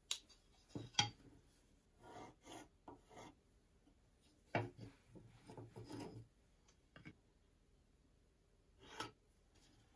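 A try square and a small block of wood knocking lightly as they are set down and shifted on a wooden workbench, between short scratching strokes of a pencil marking lines along the square's steel blade. Several separate light knocks and two short runs of scratching, with quiet between.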